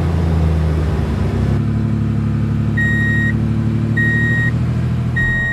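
Truck engine running steadily, changing note about one and a half seconds in, with three evenly spaced beeps of a reversing alarm in the second half.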